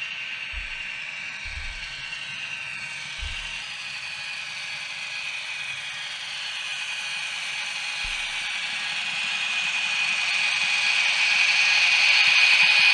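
TT-scale Piko BR 131 model diesel locomotive running on track: a steady whine with mechanical clatter that grows steadily louder over the second half.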